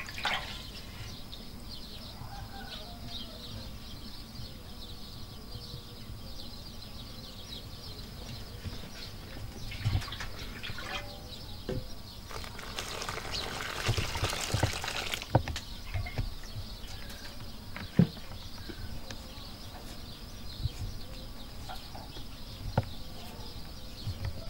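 Water poured from an aluminium cooking pot into a metal bowl of flour for about three seconds midway, the water for village bread dough, among scattered knocks and clinks of the pot and bowl being handled. The loudest knock comes a few seconds after the pour.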